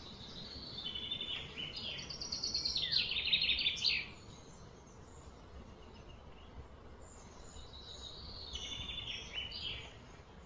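A songbird singing two phrases of rapid repeated high notes: a louder one lasting about three seconds, then a softer one starting about seven seconds in. Steady low outdoor background noise lies underneath.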